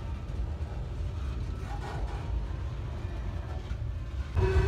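Freight train running by with a steady low rumble and faint steady whining tones over it; about four seconds in it suddenly gets louder.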